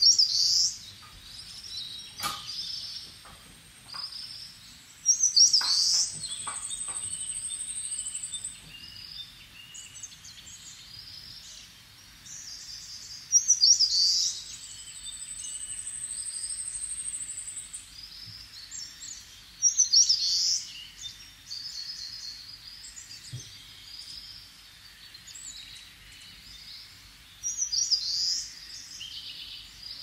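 A nature soundtrack of wild birds chirping and calling over the faint steady murmur of a stream. A thin, very high note is held for several seconds twice.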